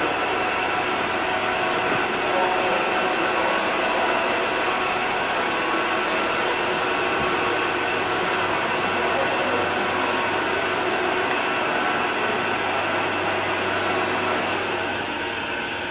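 MEBA 435G double-column horizontal bandsaw running under power, a steady machine whir with several steady whining tones.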